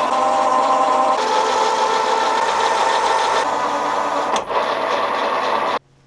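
Metal lathe running steadily as it turns a duralumin fitting, a steady machine hum with several fixed tones. A single sharp click about two-thirds of the way through, and the sound cuts off suddenly near the end.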